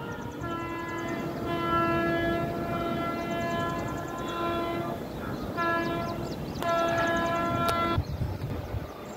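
Air horn of a WAG-9 electric locomotive on a goods train, not yet in sight up the line, sounding three blasts on one steady pitch: a long one of about four seconds, a short one, then one of about a second.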